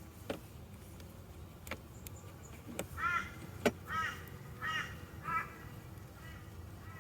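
A crow calls four times, short harsh caws starting about three seconds in, over a low steady background hum. A few sharp clicks are mixed in, the loudest one between the first two caws.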